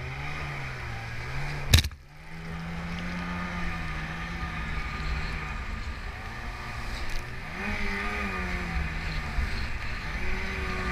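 Inflatable rescue boat's outboard motor running hard through surf, its pitch rising and falling as the throttle is worked over the waves, over a steady rush of wind and water. A sharp bang about two seconds in.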